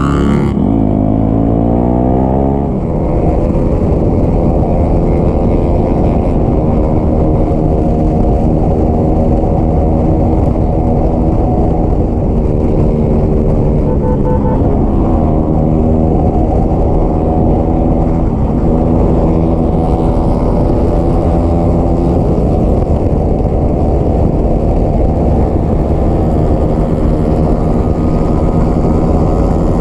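Motorcycle engine running under way. Its pitch climbs in the first few seconds, then dips briefly and climbs again about halfway through.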